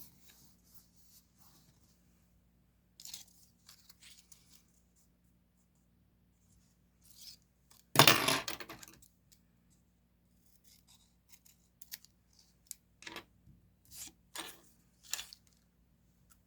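Diary-decorating paper sounds: scattered light handling and cutting of paper, with a loud rip of paper or tape about eight seconds in and a run of short crisp snips or crinkles near the end.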